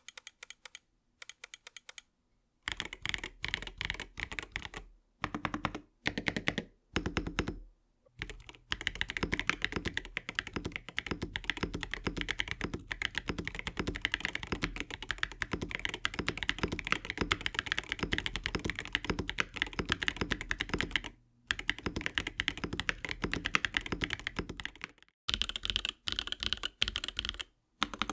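Typing on a Mojo 68 mechanical keyboard with RamaWorks Duck switches and Cerakey ceramic keycaps: fast runs of key clacks broken by short pauses. After a brief gap near the end, the typing goes on with PBT keycaps.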